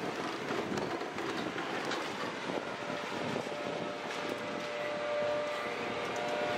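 Concrete crunching and crackling in the crusher jaws of a CAT 6015B high-reach demolition excavator, over the steady running of the machine's engine and hydraulics. A steady whine joins about halfway through.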